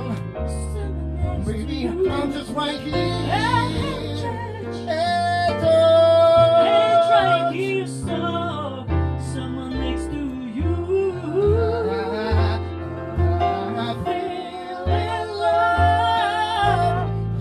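A woman singing over a small live band: an upright double bass plays steady plucked notes beneath her, with piano accompaniment.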